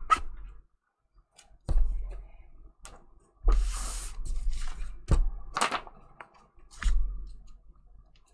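Hands handling sheets of watercolor paper and a plastic silk-screen transfer on a tabletop: several dull knocks as things are set down, and a brief papery rustle as a sheet slides, about three and a half seconds in.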